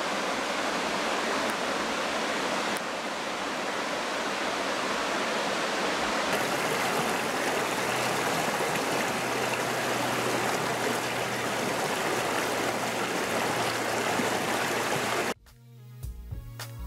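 Waterfall rushing steadily beside the track. It cuts off suddenly near the end, and music comes in.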